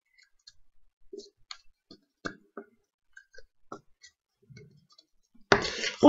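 Scattered light clicks and small knocks, irregular and quiet, from hands handling small objects at a table. Near the end a loud voice begins a sung chant.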